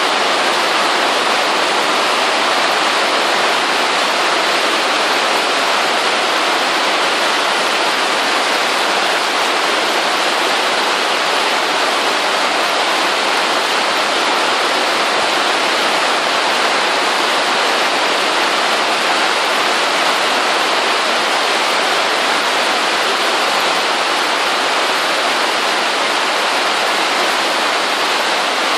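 Rain falling steadily on the plastic sheeting of a polytunnel, heard from inside as a dense, even hiss that does not change.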